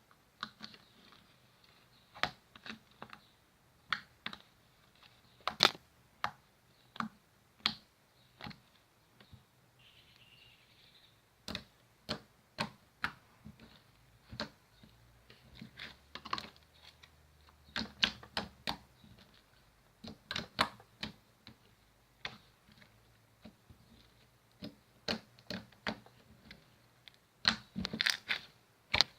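Slime being pressed and poked by hand, giving irregular sharp clicks and pops, sometimes in quick clusters with short pauses between.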